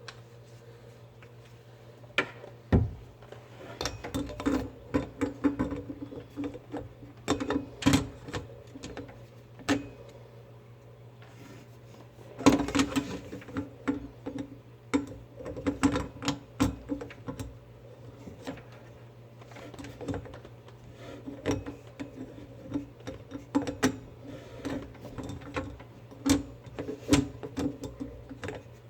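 Vessel sink fitting being tightened by hand and tool: bursts of irregular clicking, scraping and short squeaks of the nut and threads, over a steady low hum.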